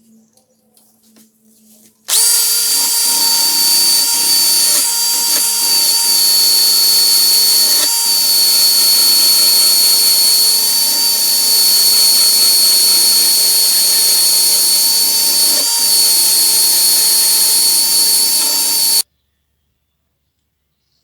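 Electric power tool running at a steady speed with a high whine. It starts abruptly about two seconds in and cuts off suddenly near the end.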